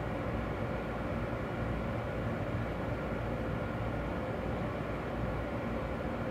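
Electric local train running, heard inside the passenger cabin: a steady rumble with a faint even hum.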